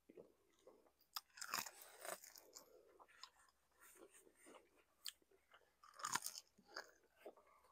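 Faint close-miked chewing of fried chicken: soft mouth sounds with scattered crisp crunches, louder about a second and a half in and again about six seconds in.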